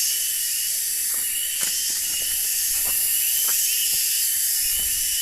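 Cicadas' steady high-pitched buzzing chorus, swelling in a regular pulse about every three quarters of a second, with a few faint knocks.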